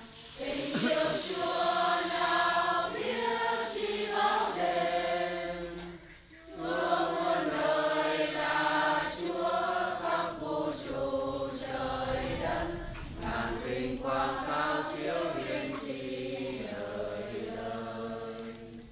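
A choir singing a hymn in long, held notes, with a short break between phrases about six seconds in.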